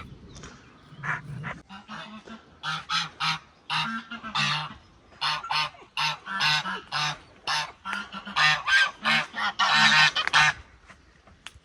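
Geese honking: a long run of short, repeated honks, two or three a second, getting louder towards the end.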